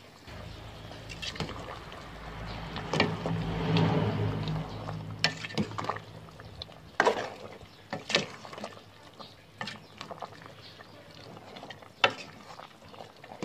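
A metal ladle stirring a pot of simmering curry: liquid sloshing, with about a dozen sharp knocks of the ladle against the side of the aluminium pot. A low steady hum runs under the first half.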